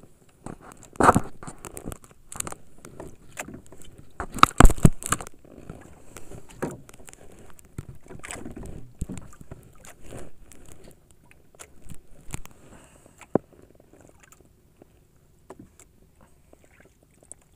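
Irregular knocks, scrapes and clatters of things being handled on a small wooden boat's deck. They are loudest about a second in and again around four to five seconds in, then die away to a few faint clicks.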